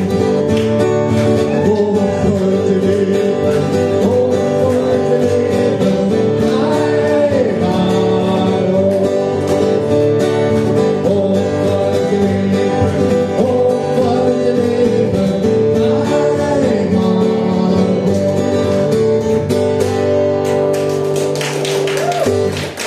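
A man singing a birthday serenade while strumming an acoustic guitar, played live through a PA. Near the end the song finishes and clapping starts.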